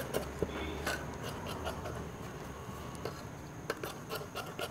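Large tailoring scissors cutting through a doubled layer of blouse cloth: a string of soft, irregular snips as the blades close, with the cloth rustling.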